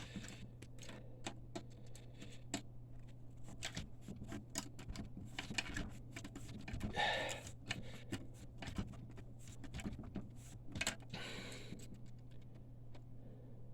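Irregular small metal clicks and scrapes as a steel retaining ring on a DTG printer's carriage shaft is twisted back and forth with a tool to fatigue-break it, over a steady low hum.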